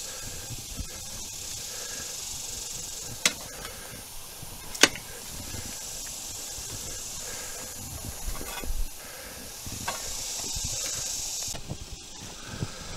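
Garden rake's tines scratching through loose raised-bed soil as it is levelled: a hiss that swells and fades with the strokes, with two sharp clicks about a second and a half apart a few seconds in.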